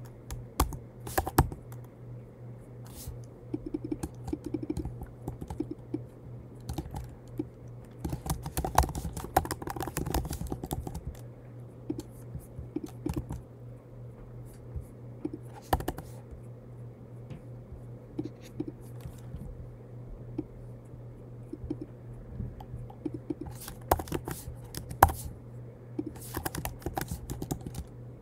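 Typing on a computer keyboard in short bursts of keystrokes with pauses between, over a steady low hum.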